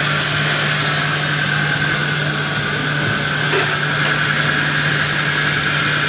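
Steady whirring hum of radio-controlled scale construction models' electric drive motors and gearing, over a constant low drone, with a single faint click about three and a half seconds in.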